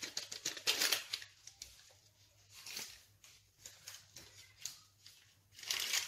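Small paper sachet of leavening crinkling and rustling in short bursts as it is opened and shaken out over a bowl of flour.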